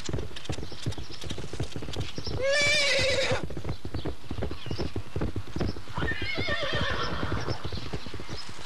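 A horse's hooves beating fast and unevenly, with a loud whinny about two and a half seconds in and a second, weaker whinny about six seconds in.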